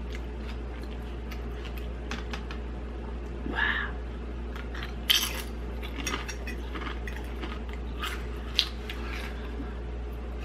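Metal fork clinking and scraping against a ceramic dinner plate while food is picked up, a run of small clicks with a sharper clink about five seconds in and another past eight seconds.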